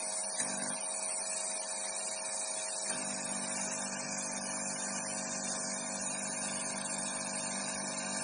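Refrigeration vacuum pump running steadily while evacuating an air conditioner's refrigerant lines, a constant hiss over a steady hum. A deeper hum comes in about three seconds in. The pump has not had its oil topped up in a long time, which its owner says leaves it short of power.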